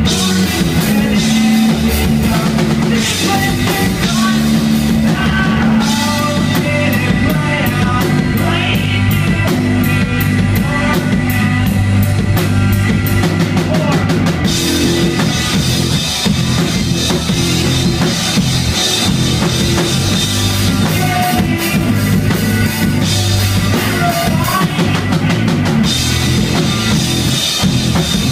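Live rock band playing loud and steady: distorted electric guitar over a drum kit, with bass drum and cymbals.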